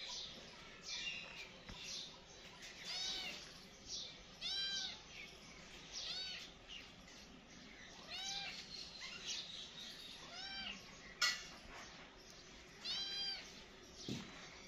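Kitten meowing, about six high meows, each rising and falling in pitch, a second or two apart, with short high squeaks between them. A single sharp click about eleven seconds in.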